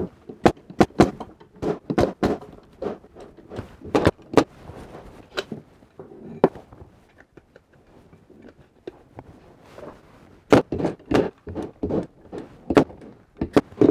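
Bostitch 16-gauge pneumatic stapler firing 2-inch staples into the finger joints of wooden beehive supers: a string of sharp shots, a few at a time, with a quick run of them near the end, and wooden knocks from the boxes being handled in between.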